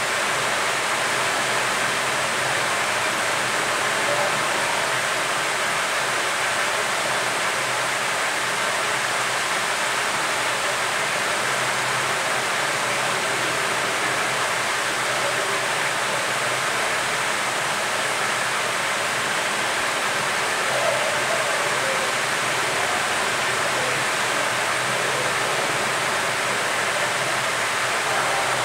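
Hot air rework station blowing a steady, even hiss of air from its handpiece onto a mobile phone circuit board.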